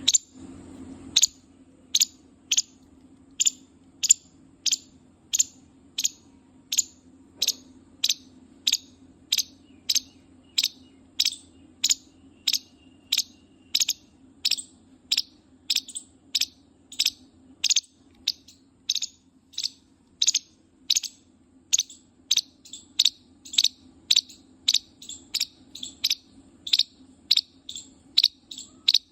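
An animal's short, high-pitched squeal-like chirp, repeated at a steady pace about one and a half times a second, over a steady low hum.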